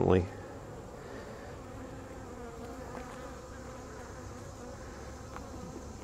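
Honey bees buzzing steadily around an opened hive, a continuous hum from the colony on the exposed frames.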